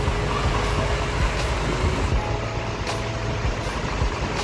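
A large bus diesel engine idling steadily with a low, even rumble.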